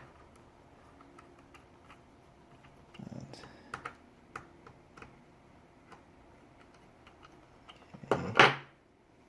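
Scattered small clicks and taps of screws and parts being handled on a reciprocating saw's housing during reassembly, with a louder handling clatter about three seconds in.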